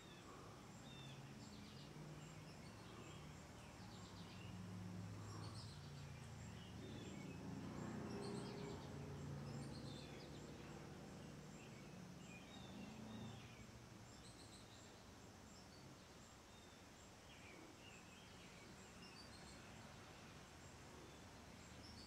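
Near silence while a Hunter Silent Breeze ceiling fan coasts down with its motor switched off. Faint short high chirps are scattered throughout, and a faint low hum swells and fades in the middle.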